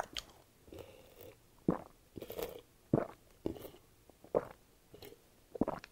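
Close-miked eating and drinking sounds: chewing on a rice cake, then swallowing gulps from a plastic drink bottle. The sounds come as short, separate clicks and gulps about every half second.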